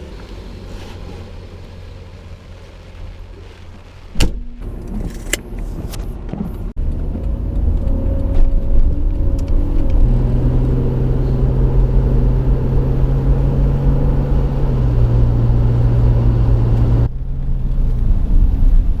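A motor vehicle running: a steady low engine hum with road rumble, in edited stretches, with a sharp knock about four seconds in. It gets louder after about seven seconds and cuts off suddenly near the end.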